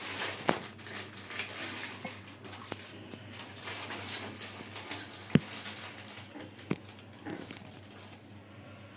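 Kitchen handling noises: scattered sharp clicks and light knocks of utensils, the sharpest about five seconds in, over a faint hiss.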